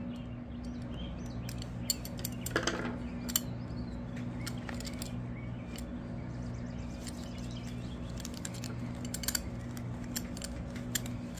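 Scattered small metallic clicks and clinks of a polished metal belt buckle being handled and put back together, a few at a time, over a steady low hum.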